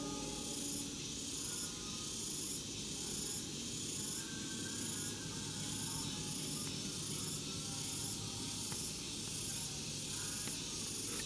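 Insect chorus: a shrill, steady high hiss that pulses evenly a little under twice a second.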